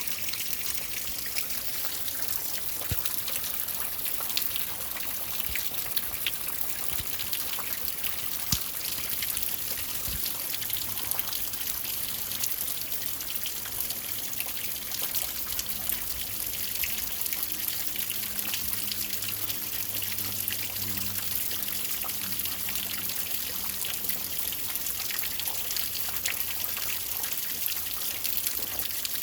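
Steady rain falling at night, a constant hiss full of small drop ticks, with water trickling and dripping nearby. A faint low hum sits underneath for a while in the middle.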